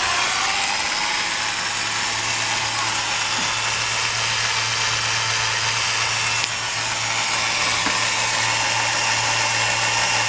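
Electric drill running steadily as it turns a homemade welding positioner through an old rototiller's worm-drive gearbox, with a low hum under a steady whirr.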